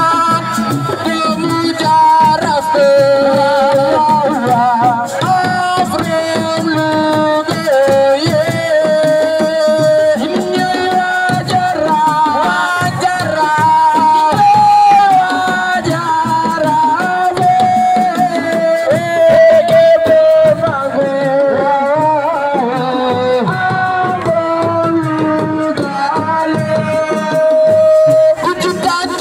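Assiko music: a steady, dense pattern of hand drums under a singing voice that holds long, wavering melodic notes.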